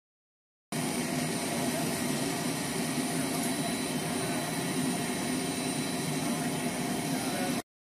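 Steady rushing and humming of aircraft machinery running on a jet flight line, an even engine-like noise with no rhythm. It starts abruptly under a second in and cuts off abruptly just before the end.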